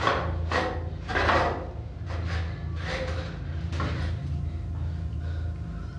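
A bound man struggling in a wooden chair: a run of short, sharp scrapes and gasping breaths, the loudest about a second in, over a steady low hum.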